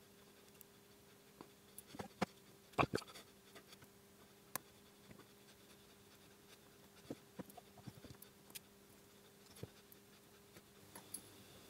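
Faint clicks and scratches of a thin metal pick working at a small plastic wire-harness connector to pry out its black insert, with a cluster of sharper clicks about two to three seconds in and scattered ticks after.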